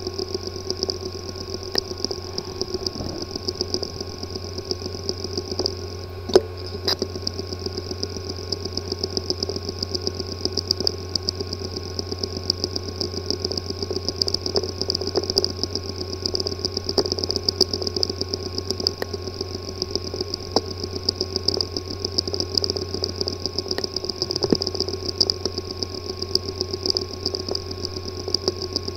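Hard disk drive with a physically damaged head-disk assembly, powered up: a steady motor hum and whir with rapid, irregular ticking and clicking running through it, and one louder click about six seconds in. This clicking and buzzing is the symptom of internal mechanical damage that leaves the drive unreadable.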